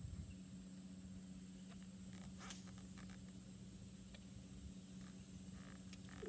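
Faint clicking of a spinning reel being cranked to retrieve a cast, over a steady low hum.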